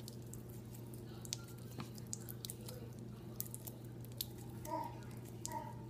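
Knife slicing a steamed hot dog held in the hand, with soft cuts and the pieces dropping into a plastic container as faint scattered clicks and taps, over a steady low hum.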